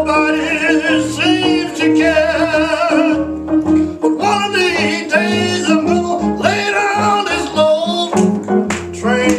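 Live gospel singing with guitar accompaniment, the voices held with a wavering vibrato over low sustained notes.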